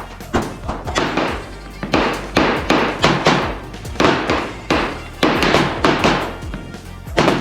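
Background music with a strong, steady percussive beat: sharp strikes about every half second.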